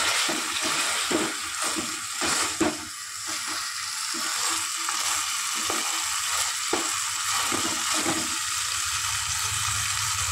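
Chopped tomatoes sizzling in hot oil in a metal pan while a wooden spatula scrapes and knocks against the pan as they are stirred and sautéed. The stirring is busiest in the first three seconds, then comes only now and then over the steady sizzle.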